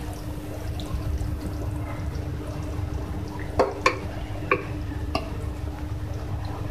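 A metal ladle scooping chickpea curry out of a metal pot and onto a plate, with the wet slosh of the curry and four sharp clinks of the ladle a little past the middle, over a steady low hum.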